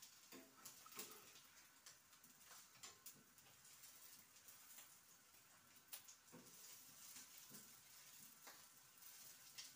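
Faint sizzling of food frying in a small pan on a gas burner, with scattered light clicks of a spoon against the pan.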